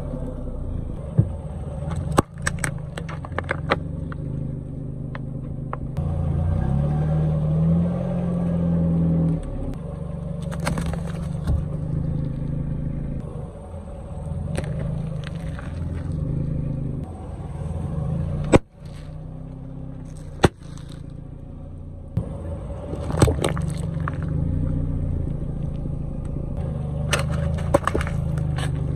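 Car engine running at low speed as the car creeps forward, its pitch rising for a few seconds, with a handful of sharp pops and cracks as objects are crushed under the front tyre.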